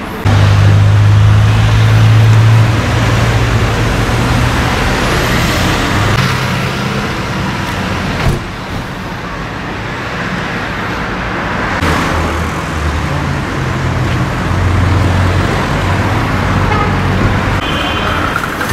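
Street traffic: a motor vehicle's engine running close by as a strong low hum over steady road noise. The hum is loudest for the first couple of seconds, then eases and shifts in pitch now and then.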